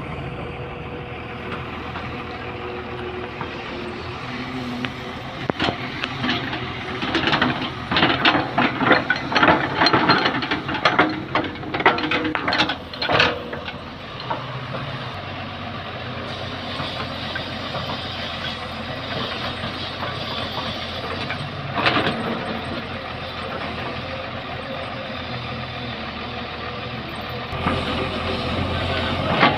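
Tata Hitachi crawler excavator's diesel engine running steadily, with a stretch of loud crunching and rattling of gravel and stones from about five to thirteen seconds in as the bucket works the pile. A single sharp knock comes about two-thirds of the way through.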